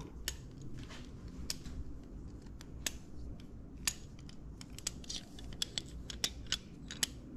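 Light, irregular clicks and taps of machined aluminium motorcycle rearset parts, a brake lever and its pivot, being handled and fitted together by hand.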